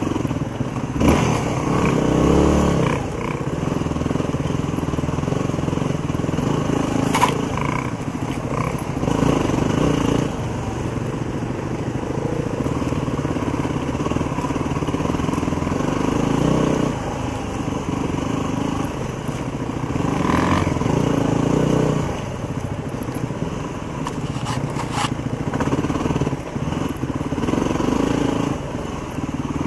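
Yamaha WR250R single-cylinder four-stroke dual-sport motorcycle running at low speed on a rough trail, the engine note swelling and easing again and again with the throttle. A couple of sharp knocks come through, one about seven seconds in and one near the end.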